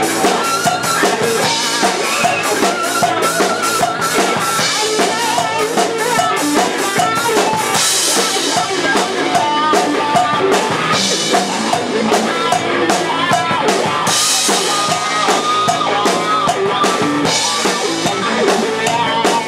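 Live rock band playing an instrumental passage with a full drum kit driving it, with no vocals and cymbal crashes every few seconds.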